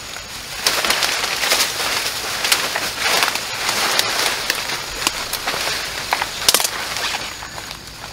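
Dry leaves and twigs rustling and crackling underfoot and against the body, with many sharp snaps, as someone pushes through leaf litter and undergrowth.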